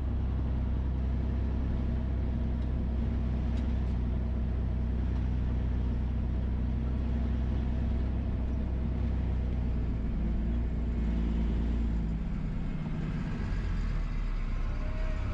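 Dump truck's diesel engine running steadily while driving, heard from inside the cab. The engine note shifts lower about twelve seconds in.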